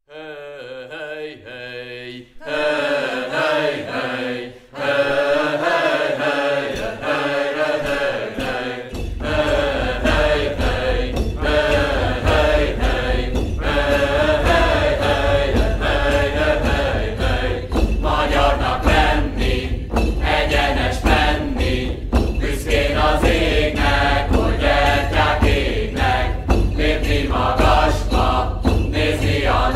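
Chanted singing, voices held and sliding in long phrases, with a steady low drum beat coming in about nine seconds in.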